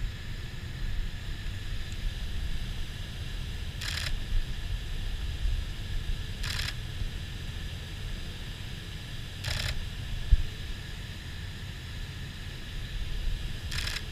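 Nikon DSLR shutter firing single shots about every three seconds, four clicks in all, over a low steady rumble.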